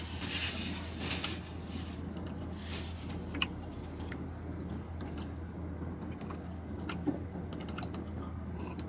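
Faint rustling and scattered small clicks of hands and a paper napkin being handled, over a steady low hum in a car's cabin.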